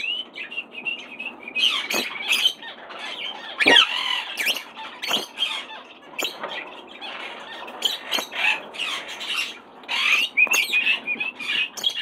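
Pet parrots in an aviary squawking and chattering, with short high calls coming one after another, and a few sharp knocks in between.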